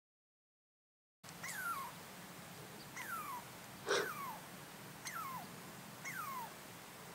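A squirrel scolding with short calls that fall in pitch, repeated about once a second, starting about a second in. A single sharp knock sounds about four seconds in.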